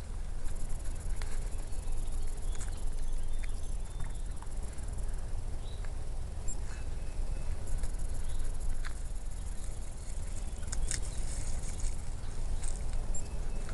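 Hands scratching and patting garden soil while planting garlic cloves, heard as scattered light scrapes and ticks over a steady low rumble, with a sharper click about 11 seconds in.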